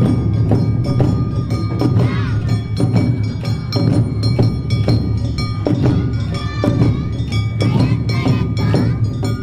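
Awa odori festival music: taiko drums and a clanging kane hand gong keep a brisk, even rhythm, with a high flute melody over it.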